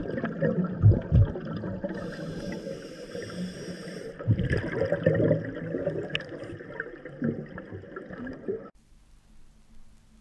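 Underwater scuba breathing: a diver's regulator hissing on an inhale about two seconds in, with exhaled bubbles gurgling around it. It cuts off to near silence about a second and a half before the end.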